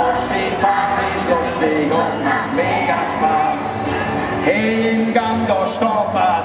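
Children's choir singing a children's song live, with instrumental accompaniment including an upright double bass.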